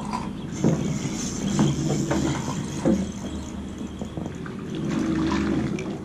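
Water splashing and sloshing around a small boat while a hooked perch is reeled in, with a steady low hum underneath and a few short knocks.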